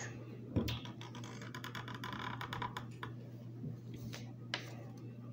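Felt-tip markers scratching on paper: a quick run of short drawing and colouring strokes, with a knock on the table about half a second in.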